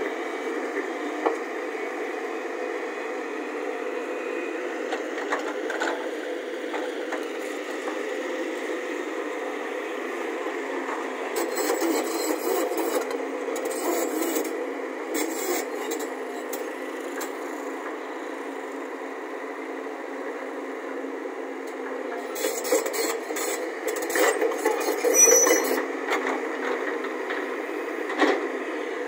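JCB JS140 hydraulic excavator running steadily as it swings and works at a dirt pile. Twice there is a spell of louder rattling and scraping, the second the loudest.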